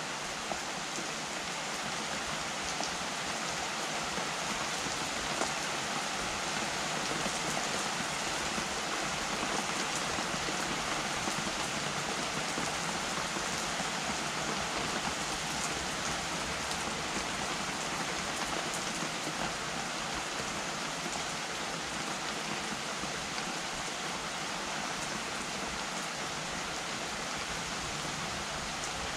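Steady rain falling: an even hiss with the patter of drops.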